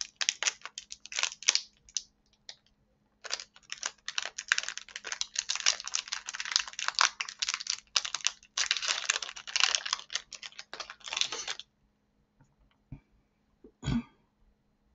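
Crinkly plastic snack wrapper being torn and peeled open by hand: a dense crackling in two long stretches that stops about twelve seconds in. A single soft thump comes near the end.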